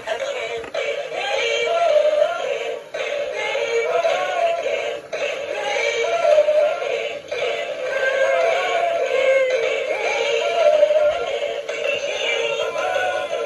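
Battery-powered animated Halloween singing figure playing a pop song with synthetic-sounding vocals through its small built-in speaker, thin and tinny with almost no bass.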